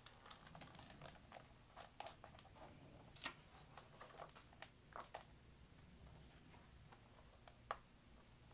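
Faint rustling and soft clicks of a hardcover picture book being opened and its pages turned by hand, mostly in the first half, with one sharper tick near the end.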